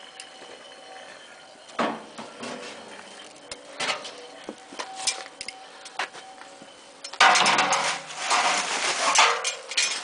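Raku firing: metal tongs clinking and knocking as a red-hot pot is carried and set down in a metal reduction bin. About seven seconds in, a sudden loud rush and crackle starts as the combustibles in the bin flare up around the hot pot.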